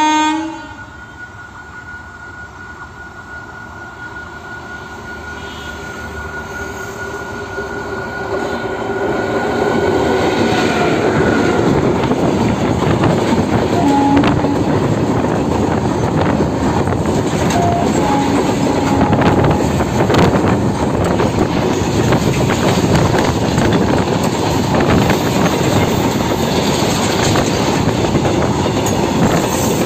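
WAG-7 electric locomotive hauling a long rake of BCNA covered freight wagons: it approaches with a thin steady whine, growing louder over the first ten seconds or so. Then the wagons roll past close by in a dense, steady rumble, with a stream of clicks from the wheels over the rail.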